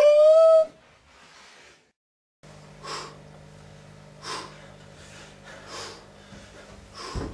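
A short pitched tone slides upward and stops. After a brief silence, a person's breathing comes in soft noisy breaths about every second and a half, over a steady low hum.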